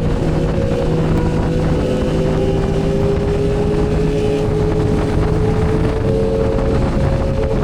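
Motorbike engine running while riding, its pitch slowly rising as it speeds up, with wind rushing over the microphone.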